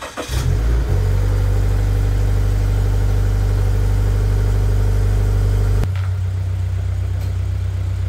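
Scion FR-S's 2.0-litre flat-four boxer engine starting up and running steadily at idle. It turns quieter about six seconds in.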